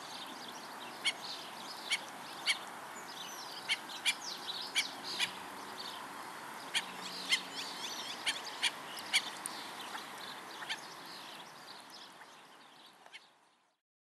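Black-necked stilts giving sharp, short calls at irregular intervals, a dozen or more, with fainter chirps of other small birds over a steady outdoor hiss. The sound fades out near the end.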